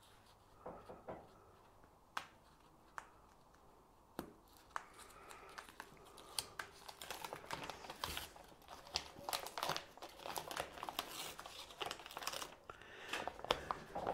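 Gapotape, a foil-backed foam tape, being handled as its backing strip is peeled off and the tape worked onto the edge of an insulation board: crinkling and tearing. A few sharp isolated clicks come first, then near-continuous crackling rustle from about halfway.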